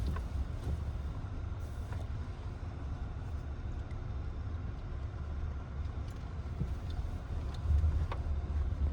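Skoda Kodiaq SUV driving slowly: a steady low engine and road rumble, with a few faint knocks.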